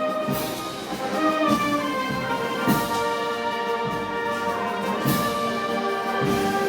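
Brass band playing Moros y Cristianos festival music: held trumpet and trombone chords, with a cymbal crash and drum beat about every two and a half seconds.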